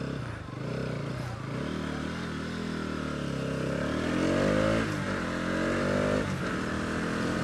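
Bajaj Pulsar NS200 motorcycle's single-cylinder engine pulling away and accelerating, its pitch rising, falling back about five seconds in, then rising again.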